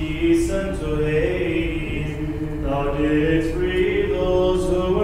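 Orthodox Vespers chant sung a cappella, the melody moving in long held notes from one pitch to the next.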